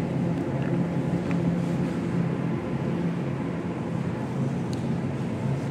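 Steady low hum and rumble of supermarket background noise, with a few faint light clicks.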